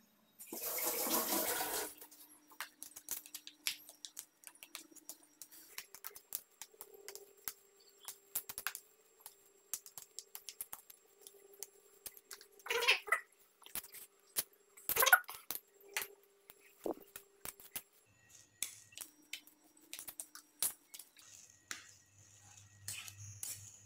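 Metal spoon and fork stirring a tray of cooked instant noodles, with irregular clicks and scrapes against the plastic tray. There is a loud rushing noise for about a second and a half near the start, and two louder scrapes about 13 and 15 seconds in.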